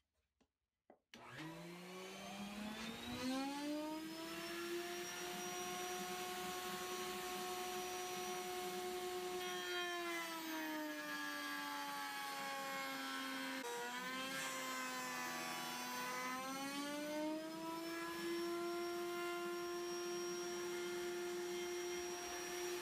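Router in a router table starting up about a second in, its whine rising in pitch for several seconds and then running steadily. About halfway through, the pitch drops as the bit cuts a groove into an oak strip, then climbs back as the cut finishes.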